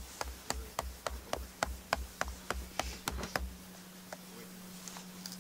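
Rapid, even knocking, about three or four strokes a second, each with a dull thud, stopping about three and a half seconds in: a plastic junction box being tapped into a soil section to take a micromorphology sample.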